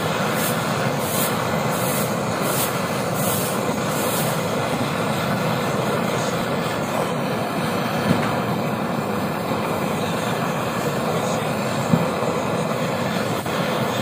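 Handheld butane canister blow torch burning with a steady hiss while its flame heats a motorcycle wheel hub to loosen the old rubber bushing. Two faint ticks come near the middle and toward the end.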